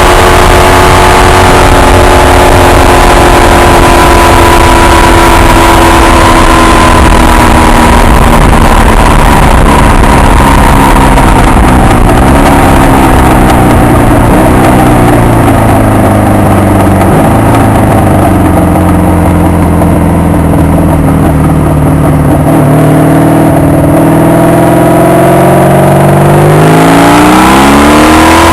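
Honda VF750 V4 motorcycle engine under way, heard from a mic on the front of the bike with wind rumble: it holds a steady high pitch, winds down as the bike slows and sits low for several seconds, then revs up hard near the end as the bike accelerates away.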